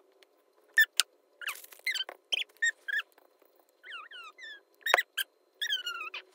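A run of short, high-pitched squeaks in quick succession, some gliding down in pitch, with two sharp clicks, one about a second in and a louder one near five seconds.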